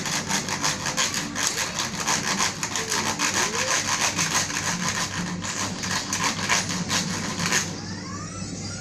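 Hand saw cutting wood in quick back-and-forth strokes, stopping about seven and a half seconds in.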